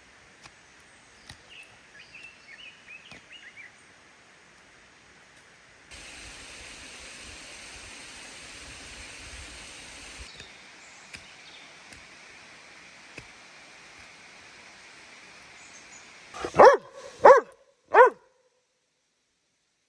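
Dog barking three times in quick succession near the end, loud against a faint outdoor background hiss.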